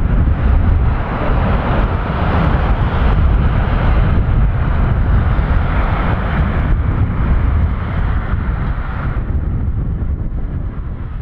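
An Airbus A330-300's Rolls-Royce Trent 700 jet engines rumbling as the airliner rolls out after touchdown on a wet runway. The higher part of the noise drops away about nine seconds in, and the sound dies down toward the end.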